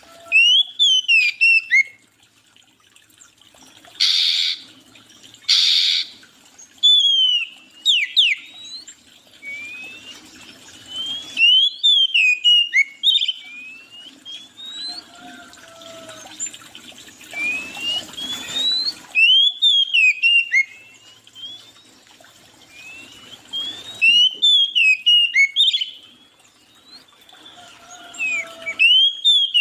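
Songbirds singing: repeated bursts of quick, sweeping chirps, a phrase every few seconds, with two short harsh rasping calls about four and five and a half seconds in.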